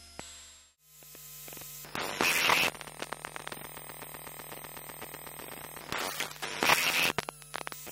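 Electromagnetic emissions of a Kindle Paperwhite e-reader heard through an Elektrosluch electromagnetic pickup: a steady electrical hum with fine buzzing ticks and thin high whines, broken twice by loud bursts of crackling static, at about two seconds and again around six to seven seconds, typical of the e-ink screen redrawing.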